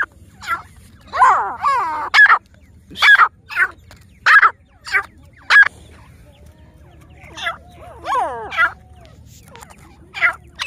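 Grey francolins calling at close range: a series of short, sharp notes, broken by two longer calls that slide down in pitch, about a second in and again about eight seconds in.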